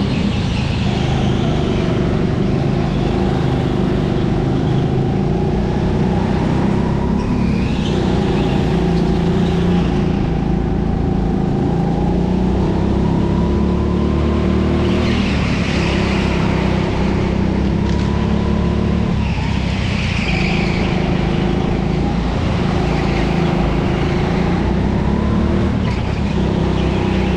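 Racing kart's engine running hard, its pitch dropping and climbing again several times as the kart brakes and accelerates through corners.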